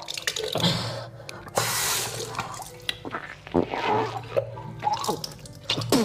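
A person deliberately vomiting lukewarm salt water into a washbasin during kunjal kriya, with gagging throat sounds and the water splashing into the basin in gushes, the biggest gush about two seconds in. Soft background music runs underneath.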